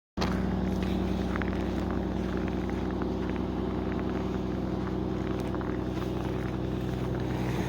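Car engine running with a steady low hum, cutting in abruptly just after the start.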